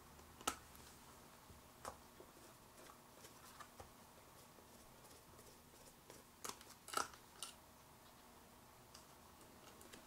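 Faint, scattered small clicks and taps of a screwdriver and tiny screws working at a laptop's 2.5-inch drive bracket, a dozen or so irregular ticks with the loudest cluster about six and a half to seven and a half seconds in.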